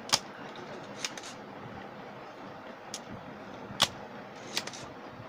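A spring-loaded desoldering pump (solder sucker) snapping as it fires, five sharp clicks spread over a few seconds, the loudest about a second in and near the end: solder being sucked off transistor legs so they can be pulled from a TV board.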